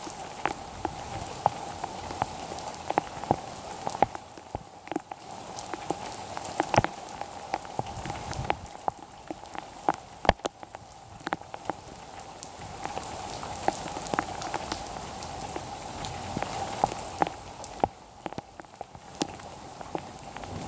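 Heavy rain falling steadily, with many irregular sharp drip impacts close by.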